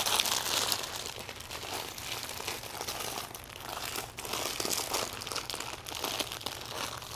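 Crinkling and rustling of a party-decoration banner and its packaging being handled, an uneven run of small crackles, busiest in the first second.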